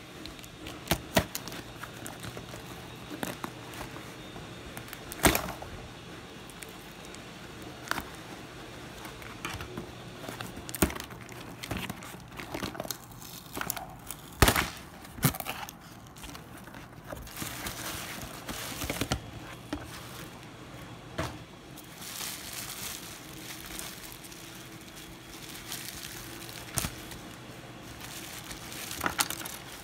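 Scattered small clicks and taps with some crinkling as the plastic parts of a Samsung Omnia II phone are handled during disassembly.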